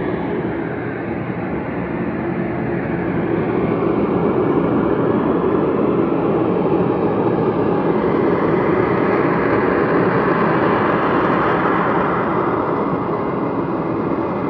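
A loud, steady low drone with no clear pitch, swelling a little from about four seconds in. It is an unexplained sound heard at night, which the recordist wonders might be aliens, a 'soundquake' or an industrial plant.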